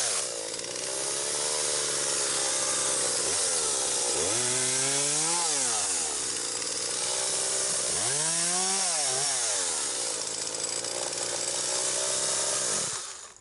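Chainsaw cutting branches, its engine pitch rising and falling several times as it revs under load and eases off. It stops abruptly near the end.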